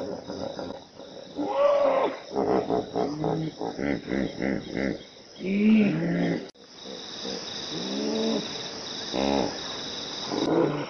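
Hippopotamus calling: a quick run of honking grunts, about four a second, then several separate rising-and-falling honks, with a brief break partway through. Insects drone steadily and high in the background.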